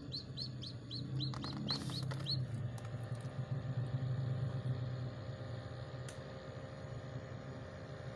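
Newly hatched chicken chicks peeping: short rising peeps, about four a second, that stop about two and a half seconds in. A steady low hum runs underneath, with a brief rustle shortly before the peeps stop.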